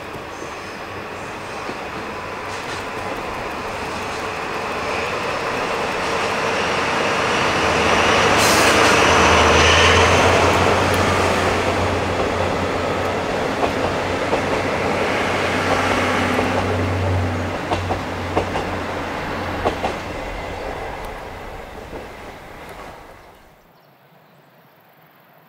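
DD51 diesel-hydraulic locomotive hauling a train of passenger coaches past. The engine's low drone builds to its loudest as the locomotive goes by, then the coaches follow with wheels clicking over rail joints. The sound fades and cuts off suddenly near the end.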